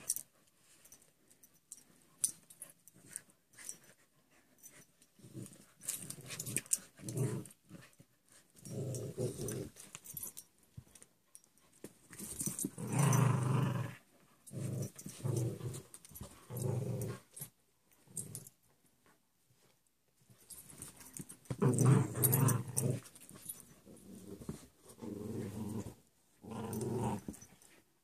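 Dogs growling as they tug and wrestle over a stuffed toy: rough, low growls in bursts of a second or two with short gaps, loudest near the middle and again about two-thirds through.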